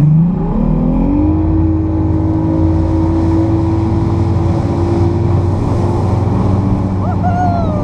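Bass boat's outboard motor throttling up, its pitch rising over the first second or so, then running steadily at speed. Near the end there is a brief high sliding sound over the engine.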